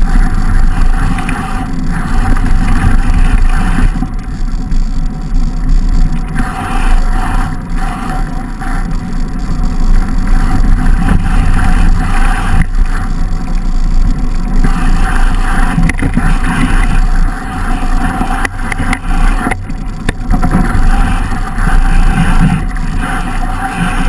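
Mountain bike riding downhill on a snowy track, heard through a bike-mounted camera: a loud, continuous rushing and rumbling of wind on the microphone and the knobby tyres on the snow, rising and falling with the terrain. A few sharp knocks from bumps come through in the second half.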